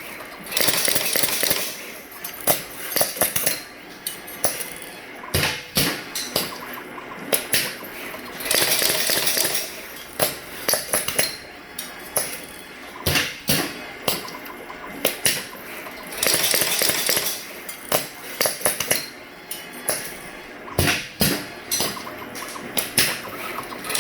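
Automated wire harness crimping and soldering machine running through its cycle: a quick series of sharp clicks and knocks from the mechanism, with a hiss lasting over a second about every eight seconds as the cycle repeats.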